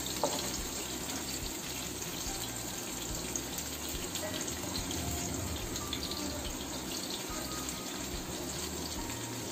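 Okra sizzling steadily in hot oil in a frying pan.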